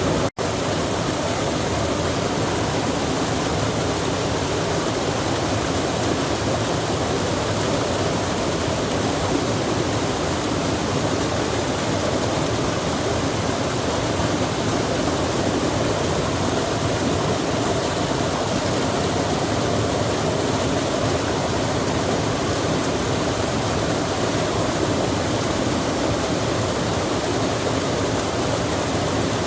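Steady rushing of water, as of a mountain stream or waterfall, an even unbroken noise with a split-second gap about half a second in.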